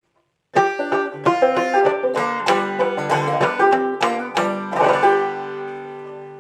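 Clawhammer banjo playing an old-time tune, starting about half a second in; the phrase ends on a note left ringing and slowly fading.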